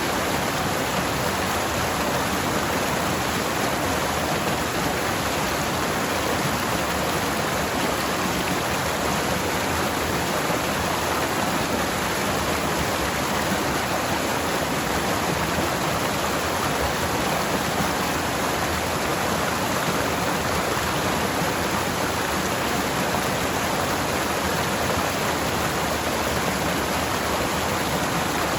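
Forest stream water flowing over its bed, a steady, even rushing with no change in level.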